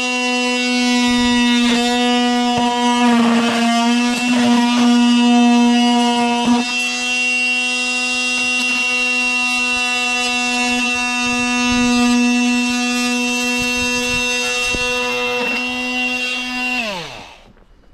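Makita oscillating multi-tool running with a steady high-pitched buzz while trimming the bottom of a vinyl outside corner post, the blade rasping unevenly against the vinyl for the first several seconds. Near the end the tool is switched off and its pitch falls away as it winds down.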